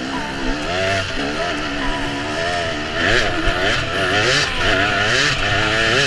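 Racing engines running hard, their pitch rising and falling over and over as they rev, with more than one engine heard at once.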